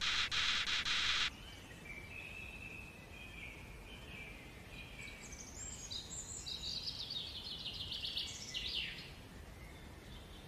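A loud, pulsing buzz that cuts off about a second in, followed by faint, high bird-like chirping and twittering that ends with a quick falling chirp.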